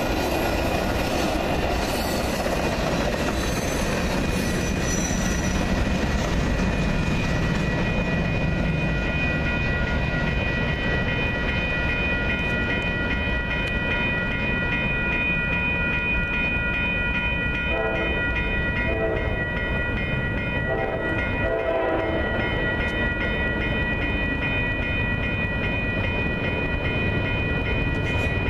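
A Metra bilevel commuter train rumbles past on the rails. Then, with grade-crossing warning bells ringing steadily, an approaching train's diesel locomotive sounds its horn in a few blasts about two-thirds of the way in.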